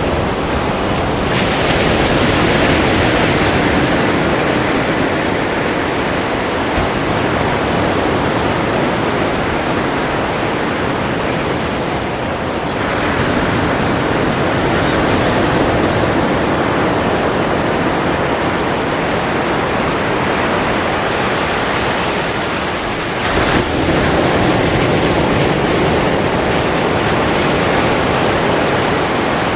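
Ocean surf: a dense, steady wash of breaking waves that swells and eases in long surges several seconds apart, changing abruptly twice.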